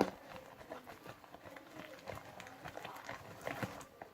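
Homemade sticky slime being squeezed and pulled in the hands, making irregular small wet clicks and squelches, after a single sharp knock at the start.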